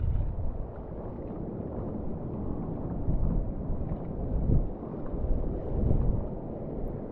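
Wind buffeting the microphone, swelling and easing in gusts, with rushing water underneath.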